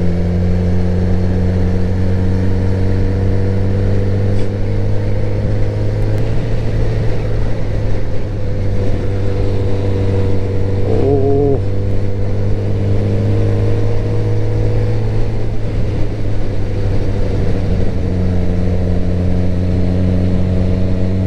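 Suzuki GSX-R1000 K7 inline-four engine running steadily while the motorcycle is ridden along a road. Its pitch climbs slowly and changes about six seconds in.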